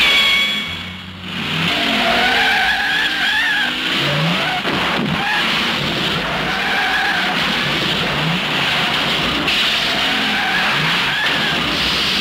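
Several cars racing flat out on an ice track, their engines revving up again and again while tyres squeal in long wavering tones as the cars slide.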